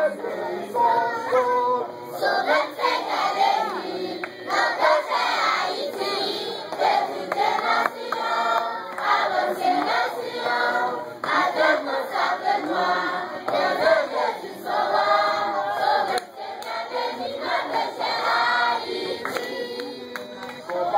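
A large group of schoolchildren singing together, with a song leader's voice among them.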